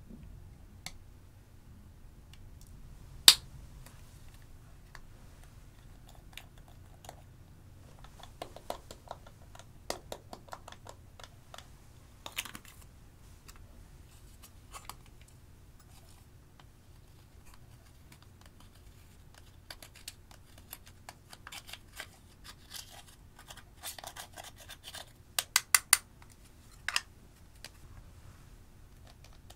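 Scattered light clicks, taps and scrapes of makeup being handled: a plastic spatula against a glass baking dish and plastic eyeshadow compacts clicking and tapping as the eyeshadow is crushed out. One sharp click comes about three seconds in, and a quick run of sharp clicks near the end.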